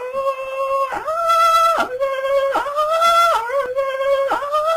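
Two women squealing together with excitement, in a run of high-pitched held squeals that break and start again about once a second.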